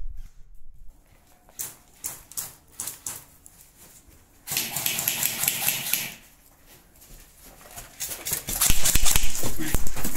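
Airsoft guns firing: scattered sharp shots, a dense noisy burst about halfway through, then rapid full-auto clatter that grows louder over the last two seconds.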